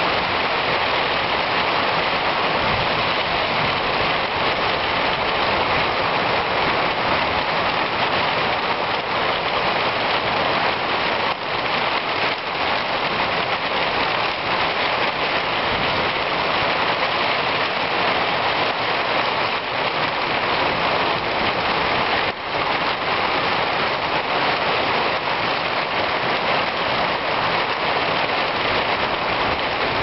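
Heavy rain pouring down steadily: a dense, even hiss of rain on foliage and ground.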